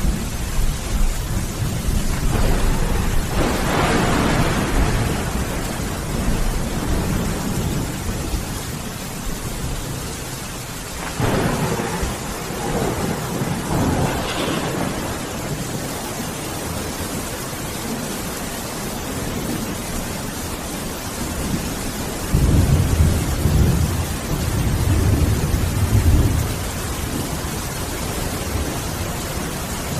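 Steady heavy rain with rolling thunder: a crack-and-rumble a few seconds in, another around the middle, and deep low rumbles near the end.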